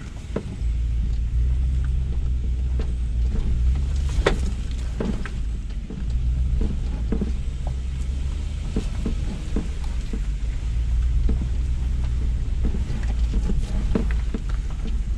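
Lexus GX470 crawling slowly over a rocky dirt trail, heard from inside the cabin: a steady low rumble from the engine and tyres, with frequent knocks and clunks as it goes over the rocks.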